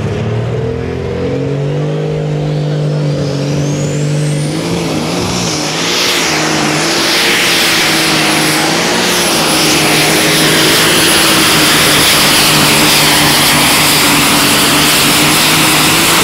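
Case IH light super stock pulling tractor's turbocharged engine held at high revs, a turbo whistle rising over a few seconds and then holding at a high pitch. About five seconds in it goes to full power as the tractor pulls the sled, louder and harsher.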